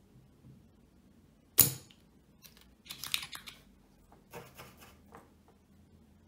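Spring-loaded desoldering pump firing with one sharp snap about a second and a half in, followed by two short runs of clicking and rattling as the pump is handled, while solder is removed from a speaker crossover board.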